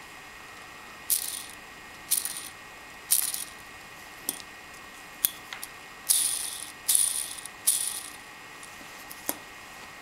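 A 3D-printed caged ball bearing with 6 mm plastic airsoft BBs as its balls rattles as it is turned by hand: six short bursts in two runs of three, with a few single plastic clicks between.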